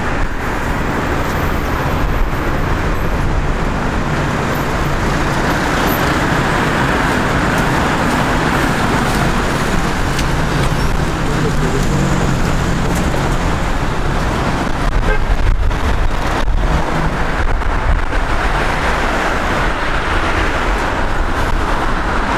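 Steady city street traffic: cars passing along a busy road, a continuous rushing noise with low engine hum.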